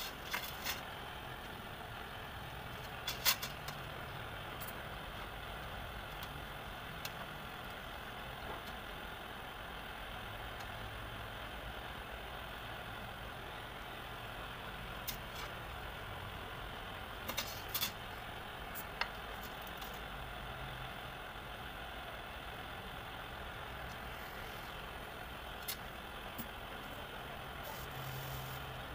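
A steady background hum with a few short sharp clicks, light taps of metal on metal as the pierced brass lantern panel is handled and worked with a soldering iron.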